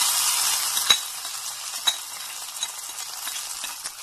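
A metal spoon scraping thick fish-and-tamarind-leaf paste out of a bowl over a steady hiss, with two sharp clinks of spoon on bowl about a second apart.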